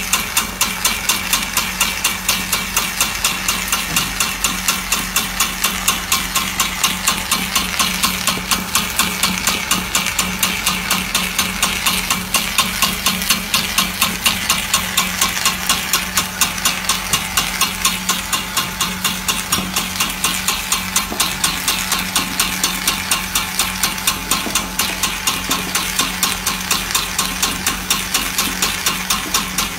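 Small puffed-snack food extruder running: a steady motor hum under a rapid, even popping as puffed corn snacks are shot out of the die.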